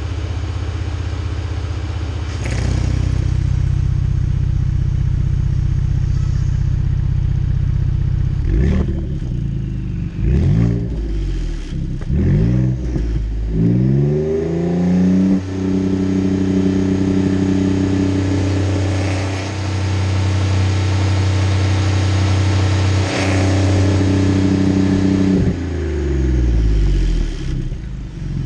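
Exhaust of a 2017 Ford Raptor's twin-turbo 3.5-litre EcoBoost V6, heard from underneath through its Magnaflow muffler and electronic exhaust dumps. It idles, steps up a little about two seconds in, then gives four quick throttle blips that rise and fall. The revs are then held steady for about ten seconds before dropping back to idle near the end.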